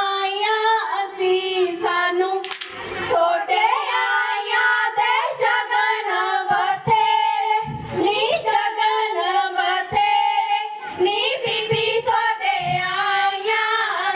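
Girls' voices singing a Punjabi giddha song (boliyan), with sharp hand claps now and then.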